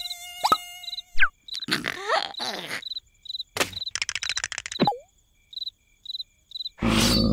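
Cartoon night ambience: a cricket chirping steadily, about two chirps a second, with a mosquito's buzzing whine in the first second and short cartoon squeaks, slides and a fast clicking rattle. Near the end a loud rushing noise sets in.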